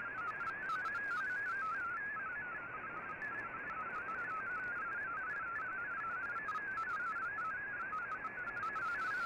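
MFSK digital-mode data signal received on shortwave: a narrow cluster of warbling tones hopping rapidly from one pitch to the next, over steady band hiss.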